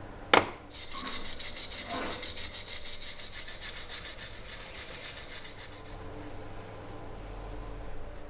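A sharp knock, then a hand tool scraping in quick, even back-and-forth strokes for about five seconds, several strokes a second, as in filing or brushing down a part during restoration work.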